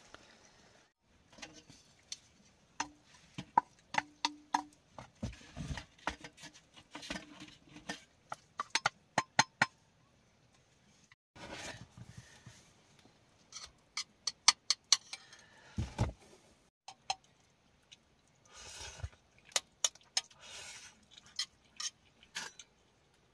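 Metal pan, utensil and stainless steel mug clinking and tapping as they are handled, in scattered sharp knocks with several quick runs of clicks.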